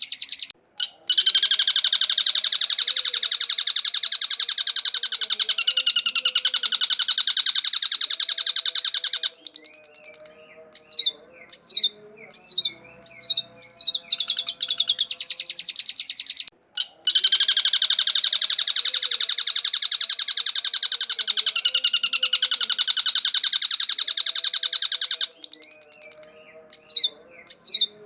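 Long-tailed shrike singing: long runs of very fast, harsh chattering alternate with short, separate wavering whistled phrases. The same sequence starts over about every 16 seconds, as in a looped lure recording.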